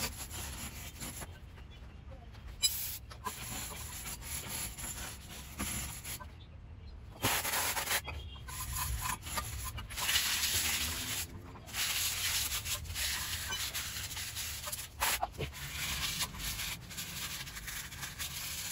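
Folded sandpaper rubbed by hand over the wheel hub's mating surface in irregular strokes with short pauses, cleaning the surface bare before the brake disc is refitted.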